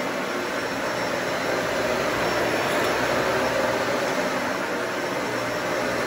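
Dyson Ball Animal 2 upright vacuum cleaner running steadily as it is pushed over a rug, its motor and brush bar giving an even, unbroken hum.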